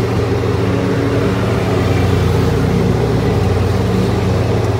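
Miniature park train running, heard from an open passenger car: a steady low engine drone over the rumble of the moving ride.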